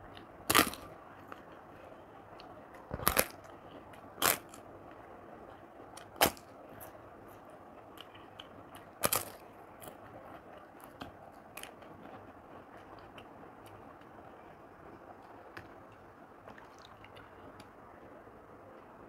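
Crisp fried papad being bitten and chewed close to the microphone: five loud crunches over the first ten seconds or so, then only faint chewing clicks.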